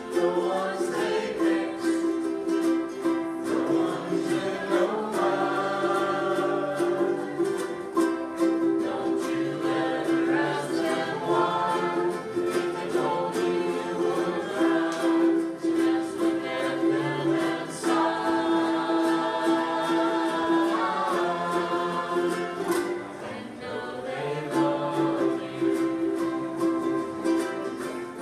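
A small ukulele band strumming ukuleles while several voices sing a song together.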